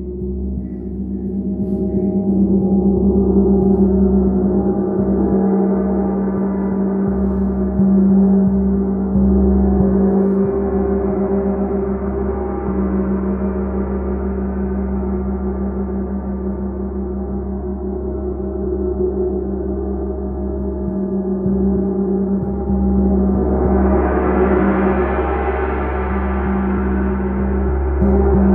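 Large chao gong played with a soft felt mallet in a run of light, continuous strokes, building a sustained wash of tone over a strong low hum. It swells and eases several times, growing loudest and brightest near the end.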